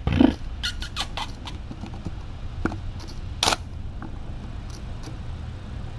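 Several short, sharp clicks and taps: a cluster in the first second or so and a louder single click about three and a half seconds in, over a steady low hum.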